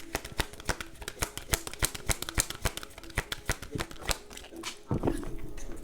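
Tarot cards being shuffled by hand: a rapid, even run of card clicks, about eight a second, that stops about four seconds in.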